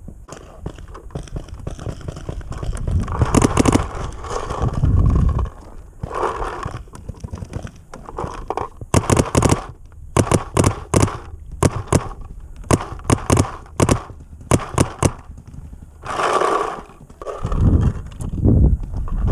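Paintball markers firing in quick strings of sharp shots, thickest from about nine to fifteen seconds in, with stretches of noise between them.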